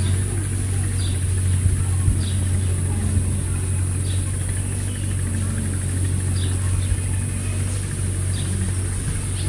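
Steady low engine-like hum with a constant high insect drone above it, and short high chirps every couple of seconds.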